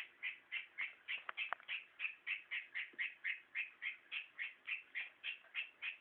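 A pet calling for attention: short high chirps repeated evenly, about three to four a second, with a light click about a second and a half in.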